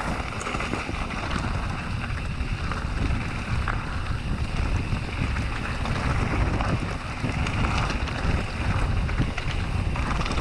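A mountain bike rolling downhill on a rough gravel and stone trail: steady tyre rumble and crunch over loose stones with small rattles from the bike, under wind buffeting the action camera's microphone.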